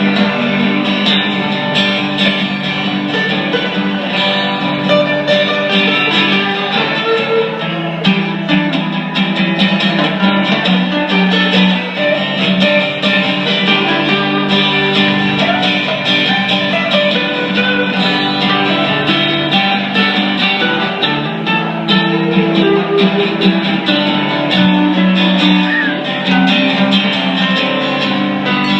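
Band music with guitar playing an instrumental passage, with no singing.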